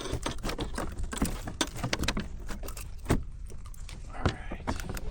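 Rapid, irregular clicks, knocks and rattles of a freshly landed trout and tackle being handled on a plastic fishing kayak.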